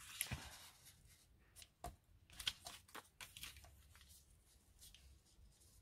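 Faint rustle of paper being handled, followed by a few light, sharp taps and clicks as paper pieces are shifted about on a work surface, then near quiet.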